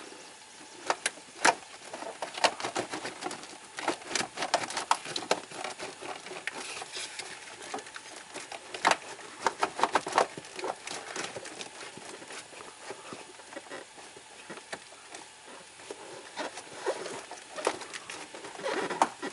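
Irregular light clicks, ticks and rustling from hands handling and wiggling wiring and plastic harness loom.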